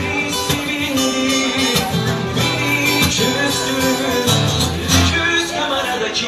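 Live band music with guitar playing.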